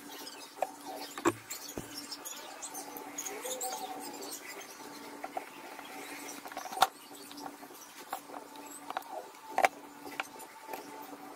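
A wooden speaker box and panel being handled on a workbench: small scrapes and a few sharp wooden knocks, the sharpest about seven and ten seconds in, over a steady low hum.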